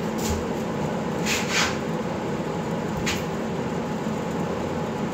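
Steady mechanical hum filling a small room, with a few brief swishes of hands brushing over a ball, two of them close together about a second and a half in.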